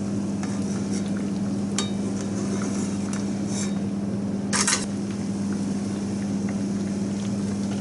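A steady low kitchen hum under a pot of miso broth simmering with mackerel. A metal ladle clinks lightly against the aluminium pot a few times, and a sheet of kitchen paper rustles briefly a little past halfway as it is laid over the fish as a drop lid.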